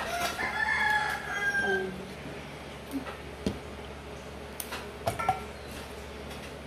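A rooster crows once, a call of about two seconds at the start. Then come a few sharp snaps as fresh green bean pods are broken by hand.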